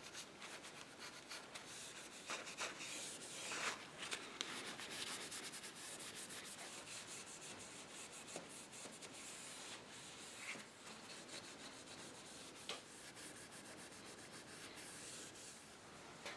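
Faint scratchy rubbing of fine 0000 steel wool with orange oil beeswax polish on the finished wood of a chair leg and stretcher, in repeated strokes with a few light clicks, as the finish is polished.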